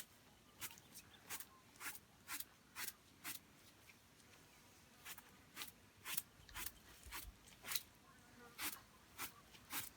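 Faint, short scratchy strokes, about two a second, of a scraper being drawn through an animal's wet wool to squeeze the water out. There is a pause of about a second and a half partway through.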